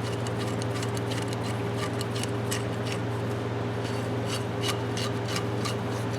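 A rusty adjustable wrench being worked by hand, the jaw and worm screw forced open and shut, giving irregular metallic clicks and scrapes several times a second as the rust-stiffened jaw frees up.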